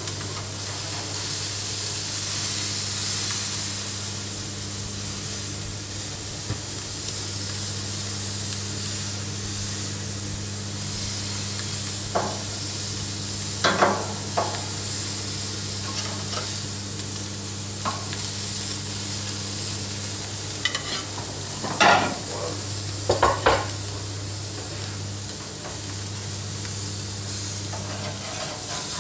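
Swordfish steaks sizzling on a hot gas barbecue grill, a steady hiss over a low hum. A metal spatula clinks sharply against the grill grates a few times about halfway through and again near the end as the fish is turned.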